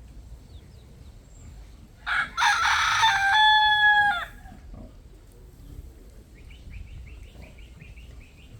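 A rooster crows once and loud, starting about two seconds in and lasting about two seconds, ending on a held note. Near the end comes a faint run of quick, high chirps.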